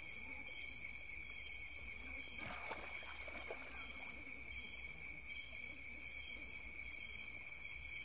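Tropical forest insect chorus: a steady high-pitched drone, with a shorter, higher chirp repeating a little more than once a second. There is a brief crackle about two and a half seconds in.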